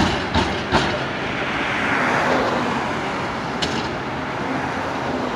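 Road traffic: a car passes, its tyre and engine noise swelling to a peak about two seconds in and then fading into steady traffic noise. A few sharp knocks sound in the first second.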